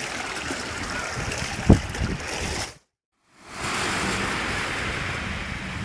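Steady rushing outdoor noise with one loud low thump about two seconds in, then a short silence, then sea surf washing onto a beach as a steady rush.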